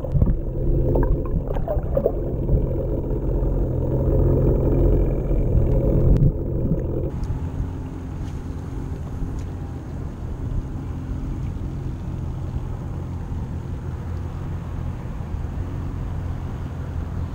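Boat motor heard underwater, a steady muffled hum with water gurgling. About seven seconds in, the sound opens up above the surface to wind and water noise with a fainter low hum.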